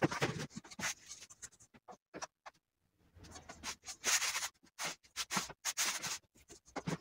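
Hands brushing and scraping dried, crumbled Artemisia annua leaves and flowers across a sheet of cardboard, with a kitchen scale handled on it: a string of short, dry scratching and rubbing sounds, louder at the start, about a second in, and again from about four to six seconds in.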